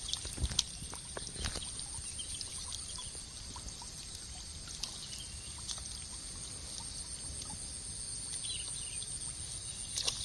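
Outdoor ambience of a steady high-pitched insect chirring, with a few light knocks in the first second and a half and faint scattered chirps.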